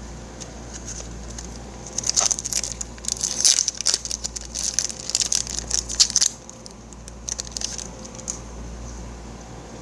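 Foil booster pack wrapper crinkling and rustling in the hands, a dense crackly run lasting about four seconds from about two seconds in.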